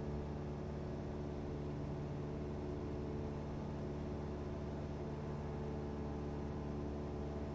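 Light single-engine piston aircraft's engine and propeller droning steadily at full power in the climb-out after takeoff, heard inside the cockpit.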